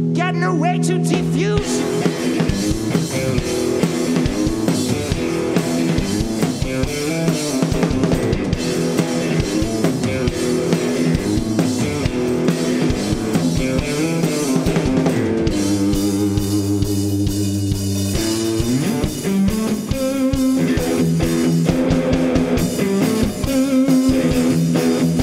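Live garage-rock instrumental: electric guitar (a Squier Stratocaster-style guitar through a Marshall amp) and a drum kit played hard, with no singing. A held guitar chord opens it, the drums come in about a second later, and about two-thirds through the guitar holds one chord for a couple of seconds before the full band returns.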